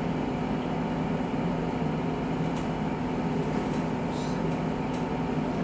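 A steady mechanical hum with a low drone and a faint held tone, like an appliance or air conditioner running, with a couple of faint light ticks.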